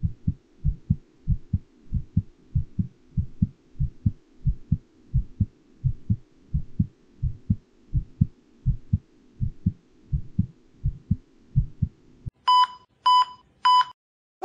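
Heartbeat sound effect: steady paired low thumps for about twelve seconds, then three short high electronic beeps about half a second apart.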